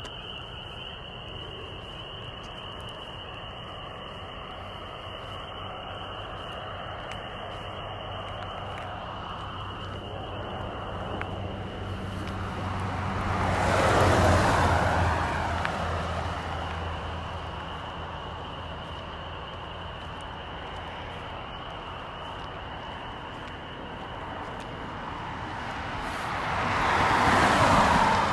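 Two road vehicles drive past one after the other, each swelling over a few seconds to a peak and fading away, the first about halfway through and the second near the end. A thin, steady high-pitched tone runs underneath.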